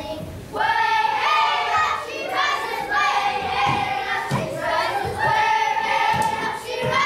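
A group of children singing together, starting about half a second in, with held, wavering notes.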